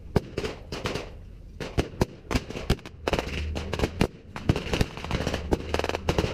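Scattered gunfire from blank rounds: sharp, irregular shots at varying distances, some in quick pairs, with no steady rhythm.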